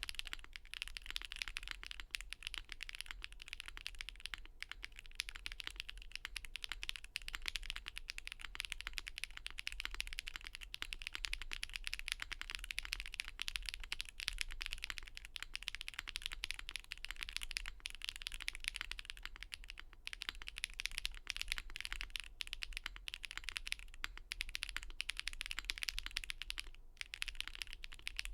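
Continuous fast typing on a Monokei Kei v2 mechanical keyboard with lubed Gateron Raw linear switches, a polycarbonate full plate in a gasket mount, and GMK keycaps: a dense stream of keystroke clicks, with a couple of brief pauses.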